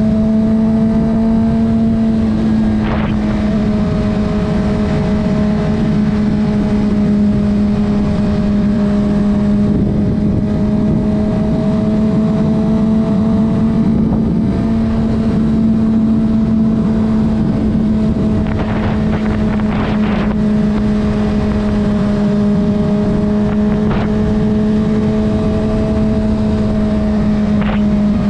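Honda CBR600RR inline-four engine running at steady revs, its pitch holding nearly level with only slight drifts up and down, with a few short clicks along the way.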